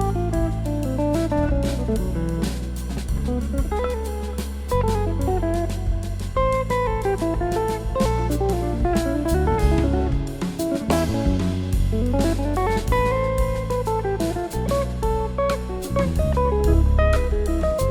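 Instrumental jazz band playing: a guitar runs quick melodic lines up and down over bass and drum kit.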